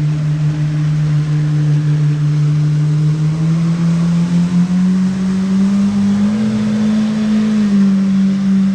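Motorboat engine running steadily as a boat passes, its pitch rising about halfway through and falling back near the end.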